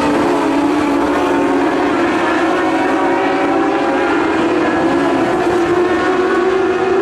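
A pack of Modlite dirt-track race cars racing, several engines running at once in a steady drone of overlapping engine notes that waver slightly in pitch.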